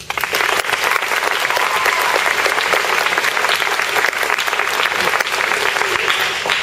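Audience applauding in a school gymnasium: many hands clapping together, starting suddenly and holding steady.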